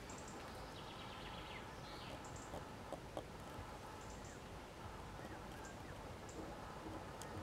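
Quiet outdoor ambience with small birds chirping now and then, short high calls, and a few soft clicks about three seconds in.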